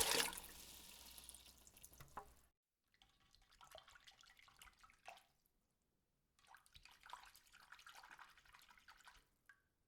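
Water dripping and trickling, faint, in short stretches broken by sudden silences: the tail of a louder splash fades over the first two seconds, then two separate bursts of small drips and trickling follow.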